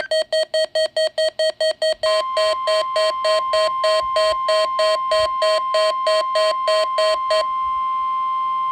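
NOAA Weather Radio alert: a Midland WR120 weather radio beeps its alarm in rapid pulses, about five a second at first and then about three a second. About two seconds in, the steady 1050 Hz warning alarm tone of the Required Weekly Test comes on and holds. The beeping stops about a second before the end, leaving the tone alone.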